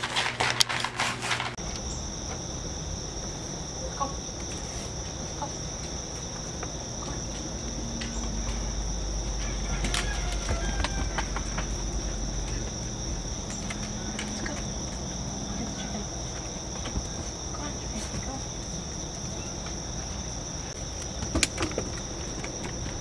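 Crickets trilling in one unbroken, steady high-pitched drone, with a few faint clicks over it. Before that, for about a second and a half at the start, a quick run of clicks and clinks as puppies eat from their bowls.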